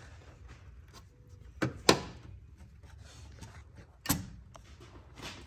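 Aluminum fan shroud knocking and clunking against the radiator as it is worked down into its bottom mounting slots: two sharp knocks a little under two seconds in, another about four seconds in.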